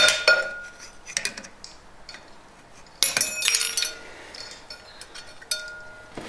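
Steel screwdrivers prying at a snap ring on a clutch spring assembly inside a 4L60E transmission clutch drum: sharp metal-on-metal clinks that ring on briefly, with a dense run of clinks about three seconds in and another strike near the end.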